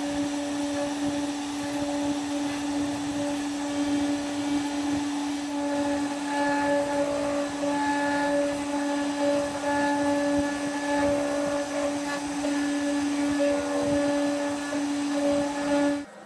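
Two Trees TTC450 CNC router's spindle motor running with a steady whine while the bit carves into birch plywood, with the rasp of cutting over it. It cuts off abruptly near the end.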